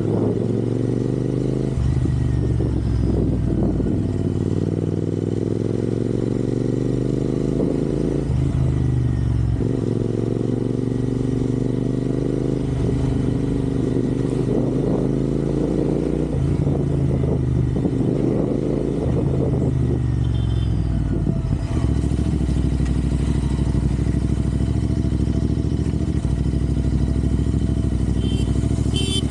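Royal Enfield Interceptor 650's parallel-twin engine running under way, its pitch climbing and then dropping several times as the bike accelerates and shifts up through the gears, then running steadier near the end.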